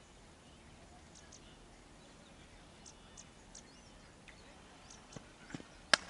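A cricket bat striking the ball once near the end, a single sharp crack, over faint open-air ambience with a few high bird chirps.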